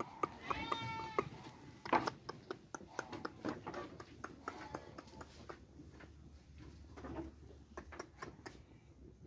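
A sheep bleats once, a short high-pitched call near the start, followed by scattered light knocks and rustles.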